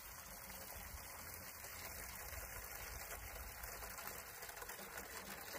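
Water running through a hose from a cooler into a sprayer tank: a faint, steady trickling hiss.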